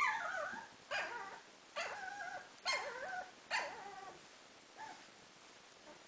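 Three-week-old standard schnauzer puppies whining: a string of short, high cries about one a second, each dropping and wavering in pitch, with a last faint cry about five seconds in.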